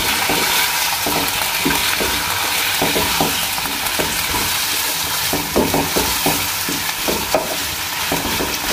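Raw chicken pieces sizzling in hot oil in a wok, just added to fried ginger-garlic paste, while a spatula stirs and turns them with irregular scrapes and knocks against the pan.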